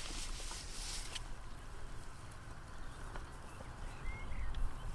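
Open-air lakeside ambience: a low, uneven rumble of wind on the microphone with a faint hiss, a few small clicks, and a short rising chirp about four seconds in.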